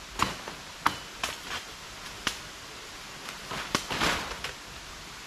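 Several sharp chops of a blade into wood and brush at irregular intervals, with a longer rustle of vegetation about four seconds in.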